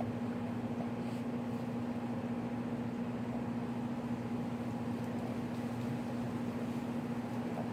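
A steady low mechanical hum runs on unchanged.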